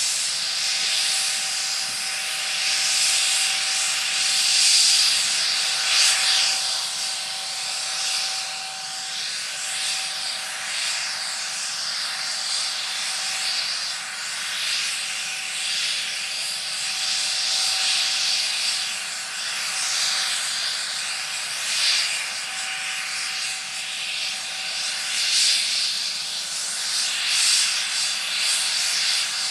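Twin turboshaft engines of a McDonnell Douglas MD902 Explorer helicopter running during start-up: a steady high whine and hiss with a faint steady tone under it, swelling and easing slightly in loudness.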